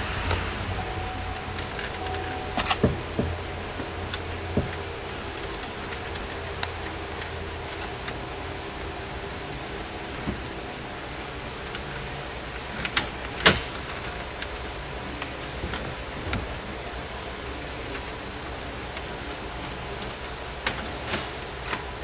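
Hands working on plastic dashboard trim: scattered clicks and knocks, the sharpest about halfway through, as the instrument panel trim plate and the hazard switch's electrical connector are handled. Under them runs a steady low hum, heavier in the first third.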